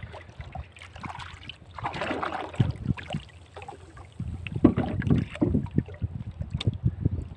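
Wind gusting across the microphone and sea water sloshing against the hull of a small outrigger canoe, getting gustier and louder about halfway through.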